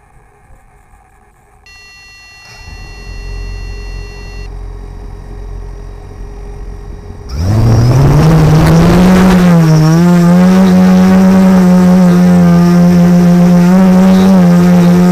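Multirotor drone power-up: a long electronic beep of about three seconds, then a low rumble of the motors turning slowly. About seven seconds in, the quadcopter's four motors and propellers spin up with a quickly rising whine into a loud, steady hum as it takes off.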